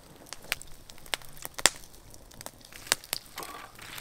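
Wood campfire crackling: irregular sharp pops, the loudest about a second and a half in and again near three seconds.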